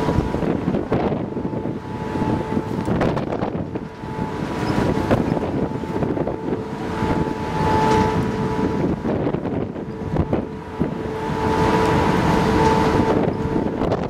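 Wind gusting over the microphone on the bow deck of the ferry MV Salish Eagle under way, over a steady two-note hum from the ship that swells a little twice.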